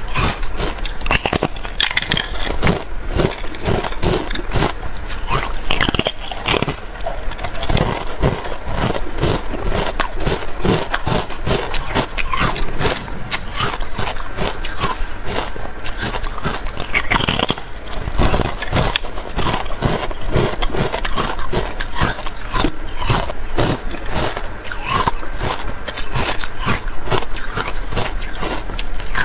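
Close-miked biting and chewing of porous pink carbonated ice: a dense run of brittle crunches and crackles as the aerated ice breaks between the teeth.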